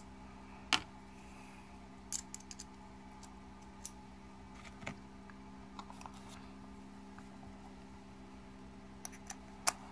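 Scattered light clicks and taps of small hand tools being handled, a red-handled hex driver among them, over a steady low hum.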